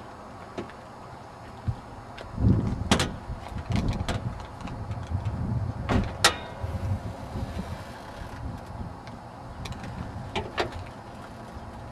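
A Honda car's hood being popped and lifted: a few sharp clacks of the hood latch and safety catch, about three and six seconds in, over a low rumbling of handling noise.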